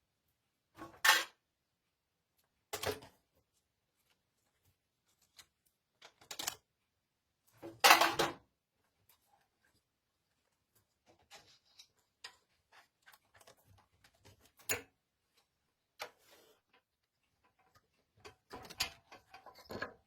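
Scattered knocks, clicks and light rattles with quiet gaps between, the loudest about a second in and around eight seconds, and a quick cluster near the end: tools and parts being handled during scooter repair work.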